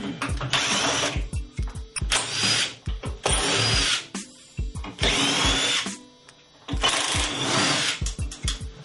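Power drill run in several short bursts, its motor whine rising as it spins up each time, over background music with a steady beat.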